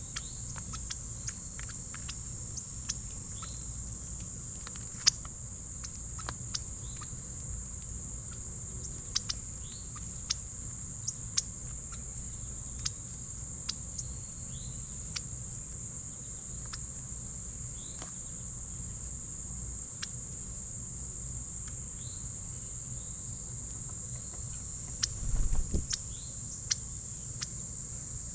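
A steady, high-pitched chorus of insects such as crickets, with scattered sharp clicks and taps, a few faint short bird chirps, and a louder cluster of knocks about 25 seconds in.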